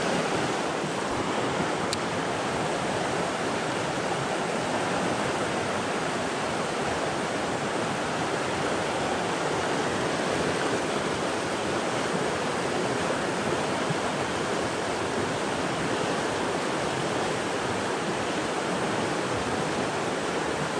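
Steady rushing of a small mountain stream pouring over rocks in shallow rapids, close by.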